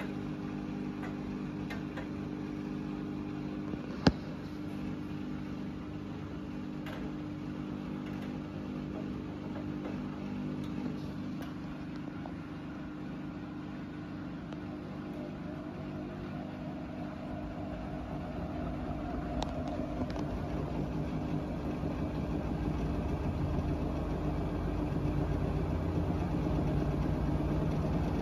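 Bosch VarioPerfect WAT28371GB washing machine with EcoSilence Drive motor running a service-mode cycle, the drum turning with water inside and giving a steady hum. A single sharp click comes about four seconds in. In the second half the sound gets louder as a low rumble builds.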